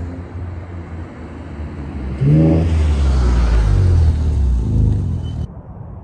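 Tuned Infiniti Q50's twin-turbo V6 breathing through a Soho Motorsports catback exhaust with four resonators, accelerating past with a rising exhaust note. It is loudest from about two seconds in and cuts off suddenly near the end. The owner finds this resonated 2.5-inch setup a little too quiet.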